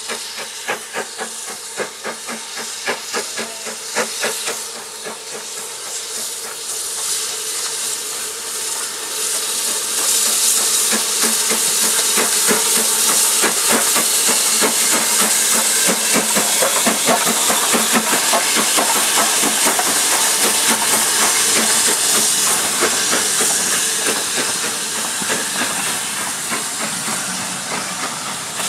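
BR Standard Class 9F two-cylinder 2-10-0 steam locomotive No 92212 passing at close range with a passenger train. Its exhaust beats come fast and even at first, then a loud steam hiss swells about ten seconds in as the engine draws alongside, and the coaches roll by near the end.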